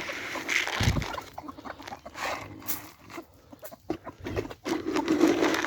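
Chickens clucking, with scattered knocks and a low thump about a second in.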